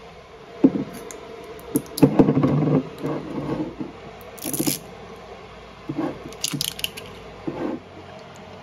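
Scattered handling noises of a glass hot sauce bottle: taps, scrapes and rubbing as it is stood on a countertop, its plastic cap touched, and lifted again.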